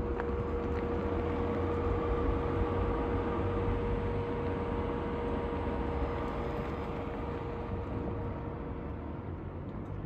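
Rivian R1T electric pickup rolling slowly over a dirt road and then pulling away: tyre noise on the dirt with a steady hum, with no engine sound. The sound grows fainter over the second half and the hum dies away near the end as the truck moves off.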